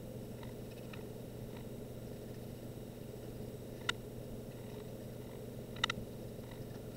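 A few light clicks from handling a wooden model airplane and paintbrush while painting: one about four seconds in and a quick double click near six seconds, over a steady low room hum.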